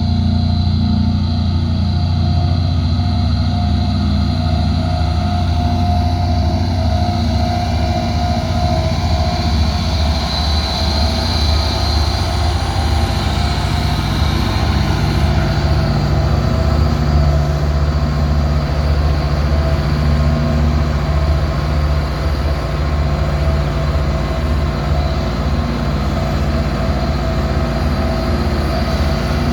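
Diesel engine of heavy road-building machinery, paver or road roller, running steadily with a low, continuous hum.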